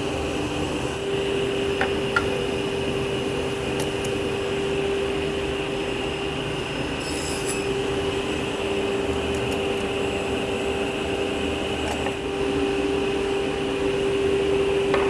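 Martin T60 sliding table saw running steadily with a constant hum while taking grooving passes through wood, with a few light clicks along the way.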